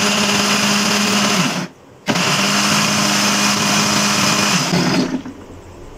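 Electric blender motor running, grinding tamarind pulp with sugar and water into chutney. It cuts out briefly just before two seconds in, runs again, and stops about five seconds in.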